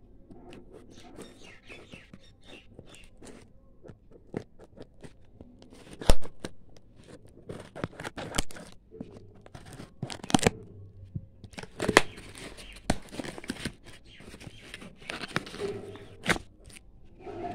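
Scissors snipping and sliding through packing tape on a cardboard box, with tape tearing and the cardboard rustling as it is handled. Several sharp snaps are scattered through, the loudest about six seconds in.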